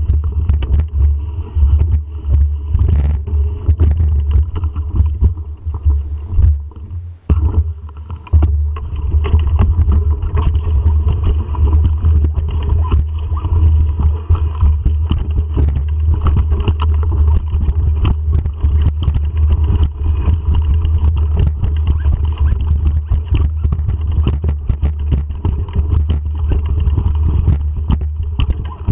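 Mountain bike ridden over a rocky singletrack, heard through a camera mounted on the handlebar: a loud, constant low rumble with many small knocks and rattles as the bike jolts over rocks and roots. It eases briefly about seven seconds in.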